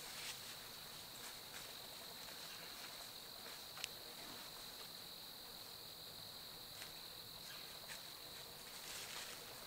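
Faint, steady chorus of crickets trilling in woodland, with a few light rustles and one sharp click about four seconds in.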